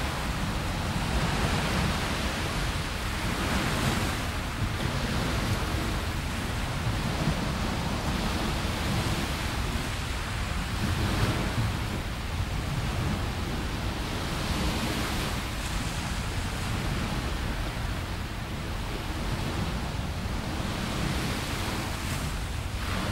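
Small waves washing onto a sandy beach, the surf swelling every few seconds, over a steady low rumble of wind on the microphone.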